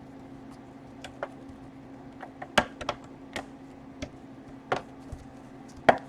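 Irregular sharp plastic clicks and taps of laptop casing parts being pressed and fitted together to test their alignment over the hinge, about ten in all, the loudest about two and a half seconds in and near the end.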